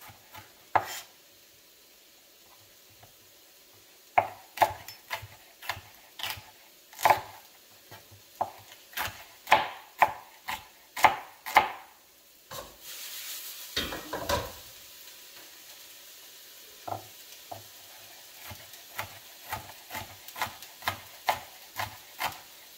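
Chef's knife chopping bell pepper on a plastic cutting board: irregular sharp knocks, about two a second, with a pause of about three seconds near the start and a brief scraping sound about halfway. In the second half the chops are softer, over a faint steady sizzle of onions in a hot oiled skillet.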